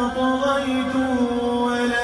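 A man's voice chanting Quran recitation in a slow, melodic style over a microphone, holding long drawn-out notes with small steps in pitch.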